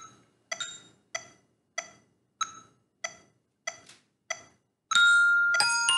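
Eight sharp, evenly spaced clicks, about one and a half a second, counting in the tempo. About five seconds in, a glockenspiel (bell kit) struck with mallets starts playing a minuet in bright, ringing notes.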